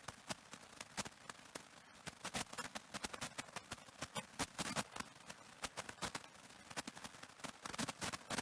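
Audio cassette playing blank tape: irregular crackling clicks, several a second and uneven in loudness, over a faint steady hiss.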